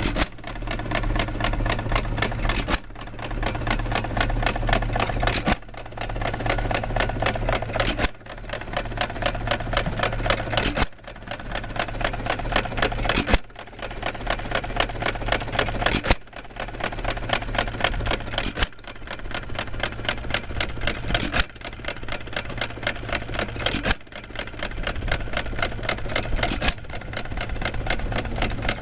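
Lauson single-cylinder hit-and-miss gas engine running and belt-driving a wooden-tub ice cream freezer. It is a fast, steady mechanical clatter over a low hum, with a sharp break and build-up about every two and a half to three seconds, the engine's firing cycle.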